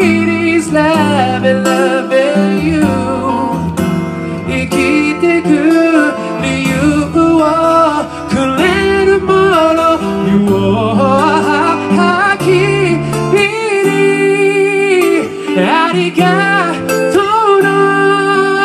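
A slow song sung live into a microphone, the voice gliding and holding long notes over guitar accompaniment.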